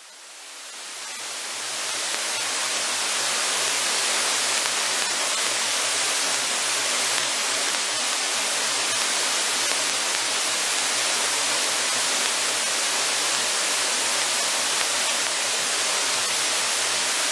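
Even, loud rushing noise of a light sport aircraft's cabin during the takeoff run, heard as a hiss without a clear engine note. It swells up over the first two seconds, then holds steady.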